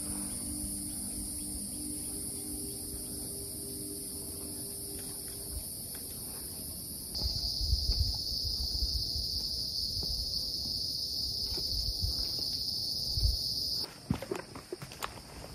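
Forest insect chorus: a steady, high-pitched buzz that changes abruptly about seven seconds in and stops near the end. Footsteps thud on the dirt trail in the second half.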